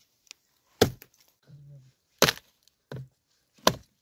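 Dry firewood being split by hand with blows of a wooden club: three sharp, loud knocks about a second and a half apart, with a lighter knock between the last two.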